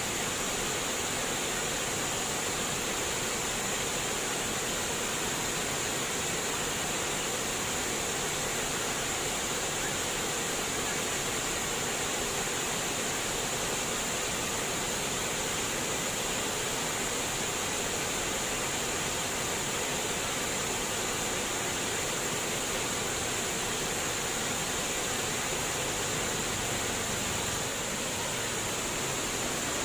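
Flowing water splashing and trickling steadily, an even hiss with no breaks.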